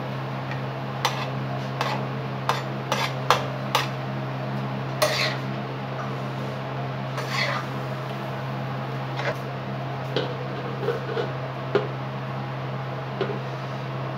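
Metal spatula knocking and scraping against an iron tawa as mutton pieces in water are stirred: about a dozen irregular clinks and a couple of short scrapes, over a steady low hum.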